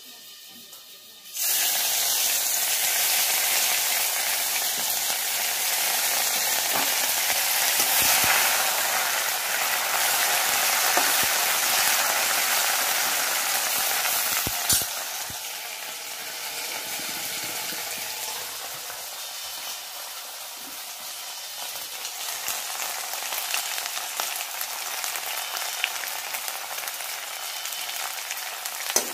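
Cumin seeds frying in hot oil in a metal wok, a steady sizzle that starts abruptly about a second in. There is a sharp click about halfway through, after which the sizzle continues more quietly.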